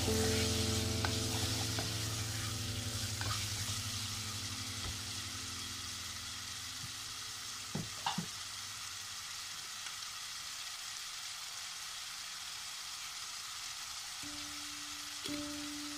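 Chicken pieces frying in hot oil in a pot, a steady sizzle, with a couple of sharp knocks about halfway through.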